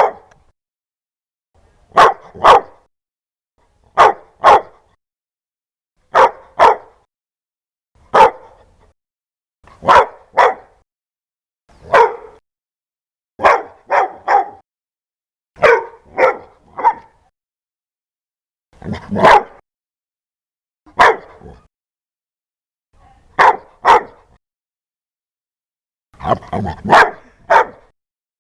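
A dog barking loudly in short clusters of one to three barks, roughly every two seconds.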